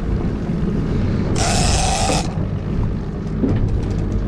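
Shimano Tiagra 50 Wide lever-drag game reel being wound under the load of a hooked yellowfin tuna, its gears ticking, over the steady low hum of an outboard motor. A short loud buzz comes about a second and a half in and lasts under a second.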